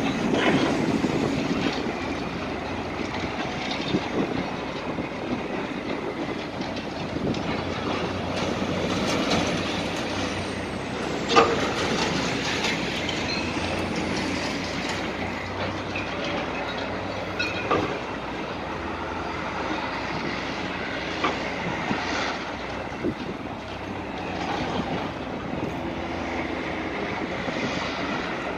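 High-reach demolition excavator breaking up a concrete-frame building, with irregular clanks and knocks of concrete and steel over steady road traffic. The sharpest knock comes a little over a third of the way through.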